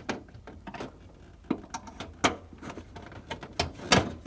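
Flat-blade screwdriver prying the locking tabs of a refrigerator freezer's plastic air grill: a scatter of short, sharp clicks and taps, with the loudest couple near the end.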